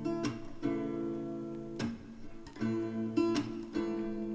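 Background song: acoustic guitar strumming chords, with no singing in this stretch.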